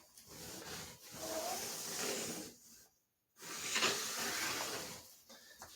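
Pencil lead scratching along a flooring board as a scribe line is drawn, in two long strokes with a brief break a little before the middle.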